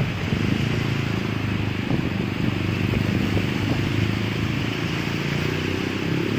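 Motorcycle engine running steadily at low revs, under a steady hiss.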